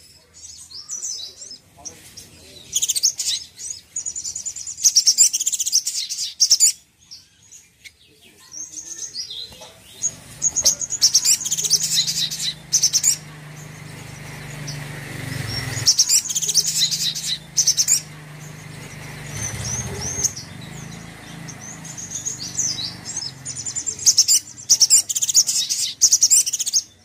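Male olive-backed sunbird calling in repeated bursts of sharp, high chirps and quick twittering trills, with short pauses between. From about ten seconds in, a low steady hum sits under the calls.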